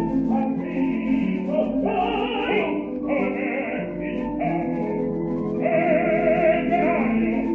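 Live operatic singing with wide vibrato over sustained instrumental accompaniment, the voice swelling on a long held high note in the second half.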